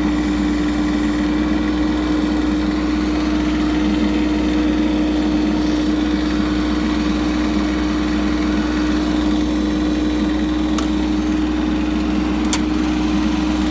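The Kubota diesel engine of a Bobcat 418 mini excavator running at a steady speed with an even drone. Two short clicks come near the end.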